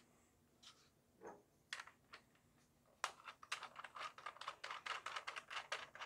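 Plastic parts of a Gel Blaster Surge toy blaster handled and screwed together: a few separate clicks, then from about three seconds in a quick run of small plastic clicks and rattles as the green muzzle piece is twisted onto the front of the blaster.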